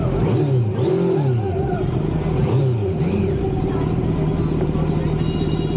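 Kawasaki Z900's inline-four engine blipped at low revs, its pitch rising and falling several times, then running steadily as the motorcycle rolls slowly.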